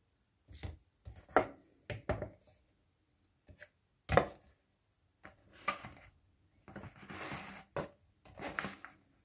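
Plastic tub being handled and turned over on a hard glass-ceramic surface: irregular knocks and taps, with a longer rubbing scrape about seven seconds in.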